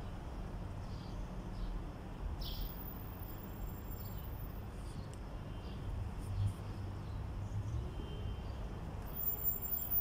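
Two doves scuffling, their wings giving a few faint, brief flutters over a steady low hum of outdoor background noise. Faint high chirps come near the end.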